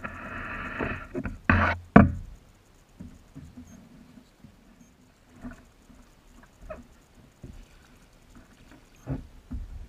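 Fishing reel whirring as line is cranked in, then two sharp knocks about a second and a half and two seconds in. After that, only faint scattered ticks and taps.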